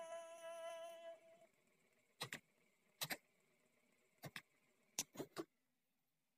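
The last held note of a synthesized cat-meow voice singing a Quran recitation melody, fading out within the first second or so. Then a handful of short, sharp clicks, a few in quick pairs and three close together near the end.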